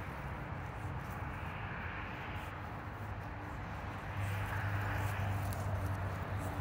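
Steady low motor hum, growing louder about four seconds in.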